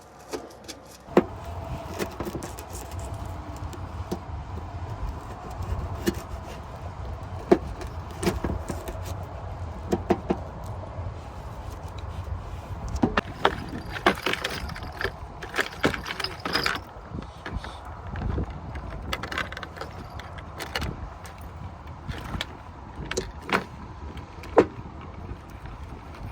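Wind rumbling on the microphone, with scattered clicks and knocks and a denser rattling stretch about halfway through.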